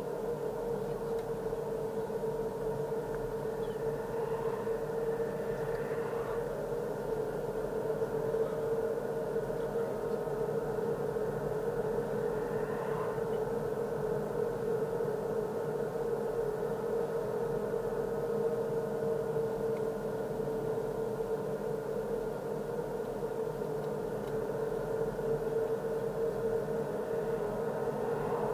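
Car driving along a paved road, heard from inside the cabin: steady road and running noise with a constant hum.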